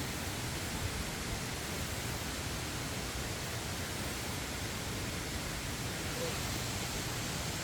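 Steady rushing of a mountain stream running high after heavy rain.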